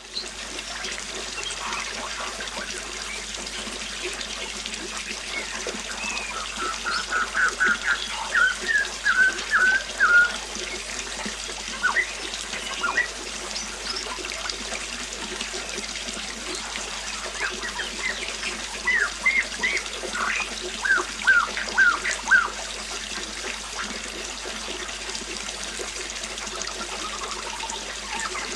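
Steady rush of a flowing river, with a songbird singing two bouts of quick chirping notes over it, one in the first third and another just past the middle.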